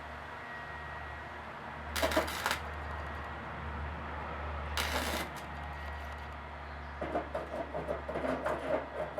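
Welder laying in weld on a sheet-metal door bottom: two brief crackling bursts about two and five seconds in, then a quick run of short pulses near the end, over a steady low hum.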